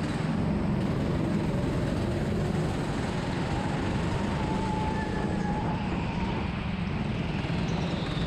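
Go-kart engine running steadily at racing speed, heard from on board the kart, with a faint thin whine partway through.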